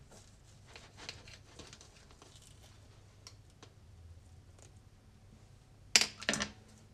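Knife sawing through a cocoa-dusted crepe roll filled with mascarpone cream, with soft scraping and crinkling as the blade passes through the layers. Near the end come two sharp, loud clacks in quick succession.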